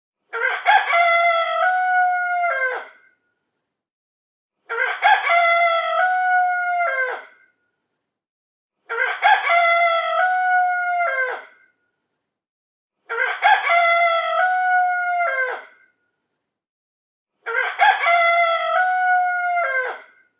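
A rooster crowing five times, each crow about two and a half seconds long, holding its pitch and dropping at the end. The crows look identical and come at even spacing with dead silence between, the same crow repeated.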